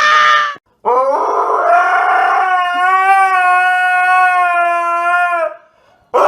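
Dog howling: a long, steady, high howl lasting about four and a half seconds, with the tail of an earlier howl at the start and the next one beginning at the end.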